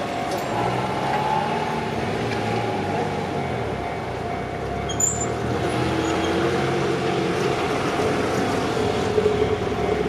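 Road traffic: cars driving across a railway level crossing, with a brief sharp knock about halfway through.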